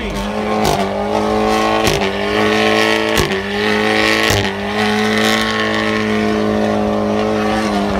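Car engine held at high, steady revs while spinning the tyres in a burnout, with tyre squeal hissing over it. The revs dip briefly four times in the first few seconds, then hold steady.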